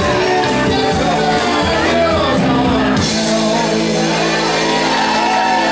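Live rock band playing: electric guitar, bass and drums with singing. About three seconds in the beat changes: the regular cymbal strokes stop and held low chords carry on.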